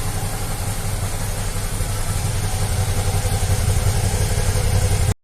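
Suzuki V-Strom 650's V-twin engine idling steadily while warm, with no coughing or stumbling: the air leak that made it sputter is cured now that the small vacuum hoses have been dealt with. The sound cuts off suddenly near the end.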